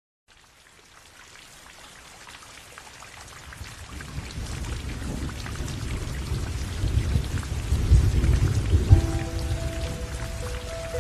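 Heavy rain fading in and growing steadily louder, with thunder rumbling in the middle and peaking about eight to nine seconds in. Soft sustained music notes come in near the end.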